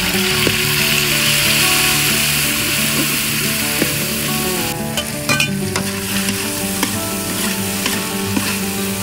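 Garlic and chili paste sizzling in hot oil in a metal wok, with a spatula scraping and stirring against the pan. The sizzle drops briefly about five seconds in, then carries on with scattered scrapes and ticks.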